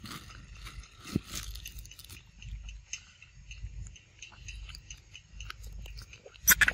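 A young macaque biting into and chewing ripe papaya flesh: irregular wet smacks and small clicks of eating, with a brief louder cluster of clicks near the end.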